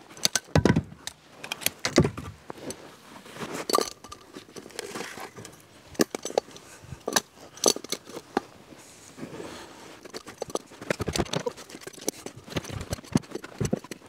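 Steel 12-inch Husqvarna timber tongs clinking and jangling as split firewood is gripped and carried, with sharp wooden knocks and thuds of the pieces being handled and tossed into a wooden trailer.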